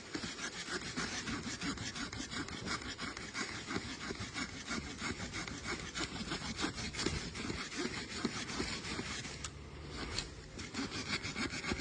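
A multi-tool's small hand saw blade sawing back and forth through wood, in a run of quick rasping strokes that pauses briefly about ten seconds in.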